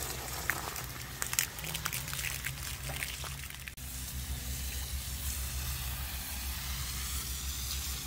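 Garden hose spraying water through an outdoor air-conditioner condenser's coils, rinsing foaming coil cleaner off the fins, with water spattering and trickling down the unit. The sound breaks briefly just before halfway, then goes on as a steadier hiss of spray.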